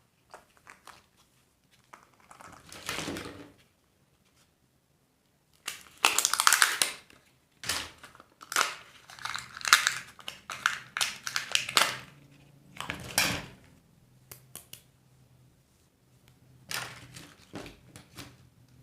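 Surprise-egg and candy wrappers crinkling and crackling in irregular bursts as they are handled and opened, busiest in the middle stretch.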